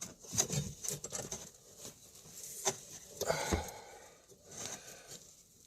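Hands working plastic dashboard trim and a switch connector: scattered clicks, taps and rustling, with a heavier knock about three and a half seconds in.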